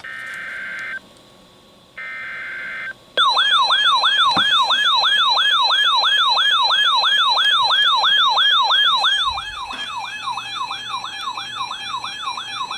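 Emergency Alert System data header over NOAA Weather Radio: two short buzzy tone bursts. About three seconds in, a loud warbling siren-like alert tone starts, sweeping about three times a second. It drops in level about nine seconds in and keeps sweeping.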